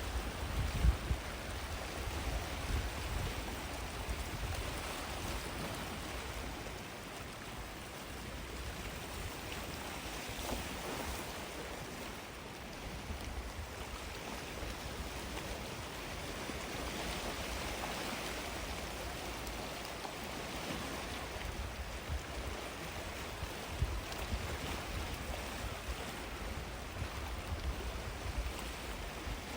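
Gentle waves washing onto a sandy beach: a steady hiss of surf that swells and eases every several seconds, with wind now and then rumbling on the microphone.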